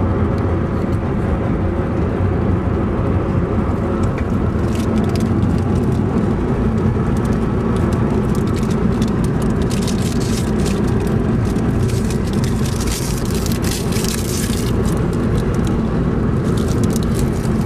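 A car driving, its engine and road noise steady throughout, with scattered clicks and crackles through the middle.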